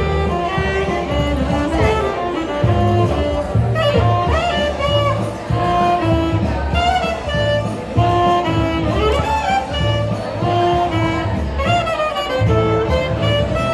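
Instrumental jazz music: a melody of held notes over a steady walking bass.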